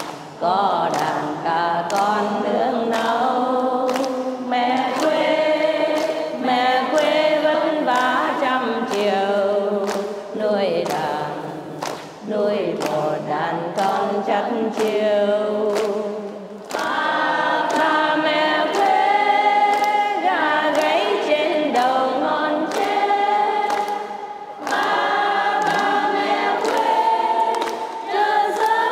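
A large crowd singing a Chinese folk song together in unison, breaking briefly between phrases, with a steady beat of sharp clicks keeping time.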